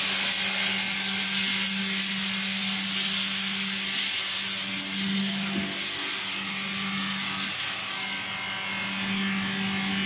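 Steady machine hum under a loud, even hiss that stops abruptly about eight seconds in.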